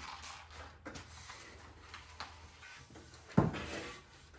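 Handling noises as the screen's top track is taken back out of the door frame: light rubbing and clicking, with one sharp knock near the end.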